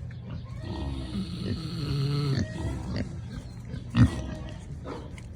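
Kunekune pig snoring: a long, wavering, rattly snore starting about a second in and lasting about a second and a half, with weaker breaths around it. A brief, loud, sharp sound comes about four seconds in.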